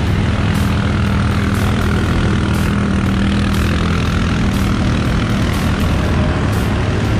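Quad bike (ATV) engine running at a steady drone while wading through a shallow river, with water splashing and churning around the wheels.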